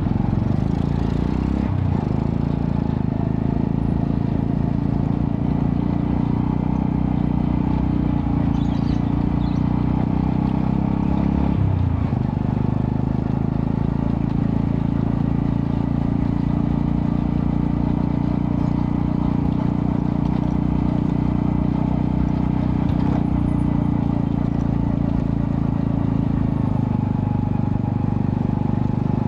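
Single-cylinder four-stroke engine of a 110cc Honda Astrea Prima-based motorcycle running steadily through a custom underbelly exhaust with a resonator. The note breaks briefly about two seconds in and again about twelve seconds in, then settles back to an even drone.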